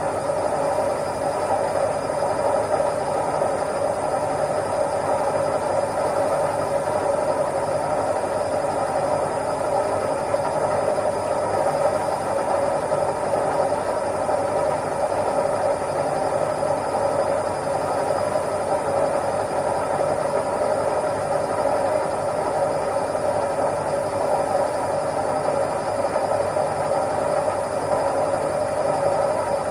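Washing machine running, a steady whirring hum with a low rumble underneath.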